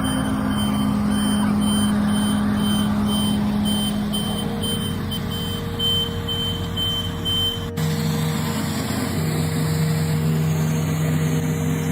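Heavy vehicle's reversing alarm beeping about twice a second over the steady running of its diesel engine; about two-thirds through the beeps stop at a sudden cut and only engine running is left.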